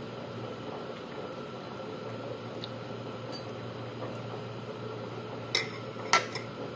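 Kitchen knife clinking twice against a ceramic plate near the end, the second clink louder, over a steady background hum.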